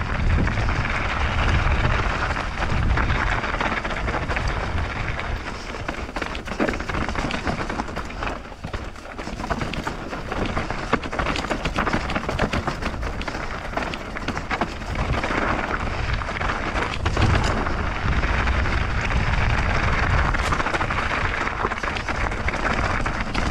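Mountain bike riding down a dusty dirt trail: a steady rush of tyre noise over loose ground with scattered clicks and rattles, and wind buffeting the microphone.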